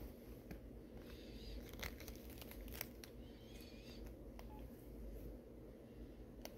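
Quiet clicks from an LG VX8360 flip phone being handled, its flip and keys clicking, with two short electronic beeps from the phone about a second and three seconds in.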